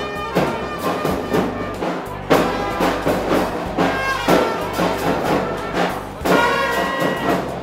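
A marching band of trumpets, clarinets and drums playing a tune, with a steady drum beat about twice a second.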